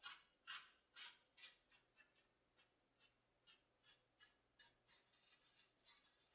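Faint paint-brush strokes on a plaster bas-relief: a run of short scratchy dabs, about two a second and strongest at first, then quicker and fainter.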